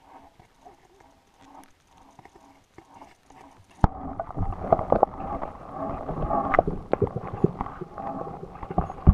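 Handling noise on the microphone: faint rustles, then a sharp knock about four seconds in, followed by loud, irregular rustling and knocking as the camera is moved.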